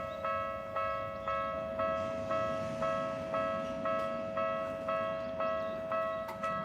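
Japanese railway level-crossing alarm ringing: a bell-like electronic ding repeating about twice a second over a steady tone, the warning that a train is approaching.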